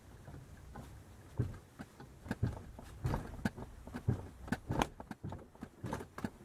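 Irregular metallic clicks and knocks from a wrench turning the forcing bolt of a rotor puller fitted to a 1977 Kawasaki KZ650 rotor, starting about a second and a half in, as the tight rotor is worked off its crankshaft taper.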